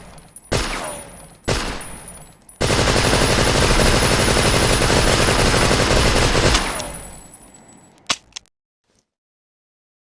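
Tommy gun (Thompson submachine gun) firing: two single shots, then a sustained burst of automatic fire lasting about four seconds, its echo dying away. Two short sharp clicks follow near the end.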